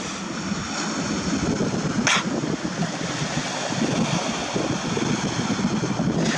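Steady rushing of surf and wind on the microphone at the shoreline, with one sharp click about two seconds in.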